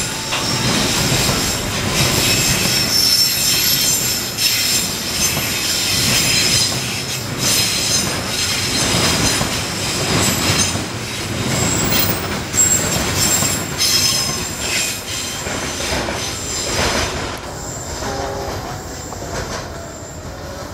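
Container freight train wagons rolling past on a curve, wheels squealing against the rails with a steady run of clacks over rail joints. The squeal and rumble fade from about three-quarters of the way through as the last wagons pull away.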